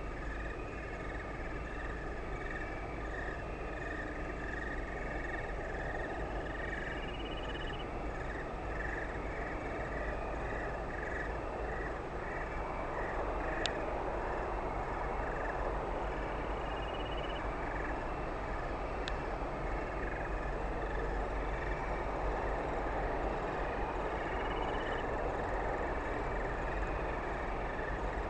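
Night-time outdoor ambience: a chorus of small calling creatures chirps rhythmically, about two pulses a second, with a higher call every eight or nine seconds. Under it runs a steady rumbling hiss that grows a little louder about halfway through. Two sharp clicks come in the middle.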